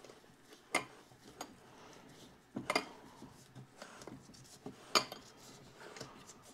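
Light metallic clicks and clinks from a 1927 John Deere D's governor weight assembly as it is turned by hand, with three sharper clicks about two seconds apart. It turns smoothly, with no binding.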